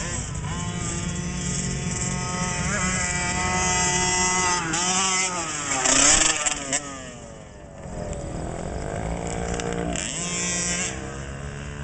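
Small 50cc two-stroke kids' motocross bikes racing, engines revving up and down. One bike passes close by about six seconds in, the loudest moment, and its pitch drops as it goes away. A quieter stretch follows before the engines rise again.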